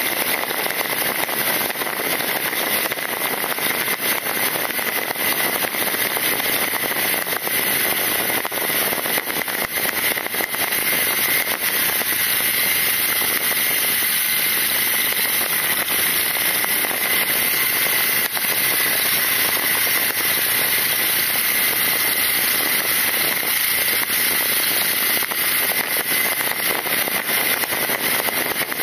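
Continuous crackling wind and road noise on a camera mounted on a moving motorcycle, a BMW R nineT riding at steady speed, with a steady high whine under the hiss.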